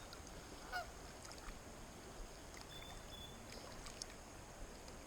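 Faint goose honking, a short call about a second in, over the low steady rush of river water.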